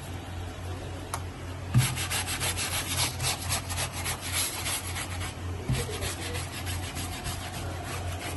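Toothbrush scrubbing wet shirt fabric in quick rasping strokes, strongest from about two seconds in until about five seconds, then lighter strokes, over a low steady hum.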